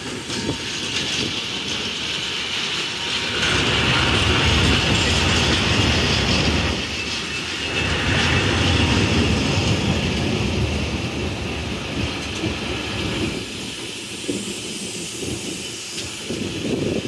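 Freight wagons of a Network Rail engineering train rolling past at close range: a steady rumble with wheels clacking over the rail joints and a high whine from the wheels. It gets louder about three seconds in and eases off a little near the end.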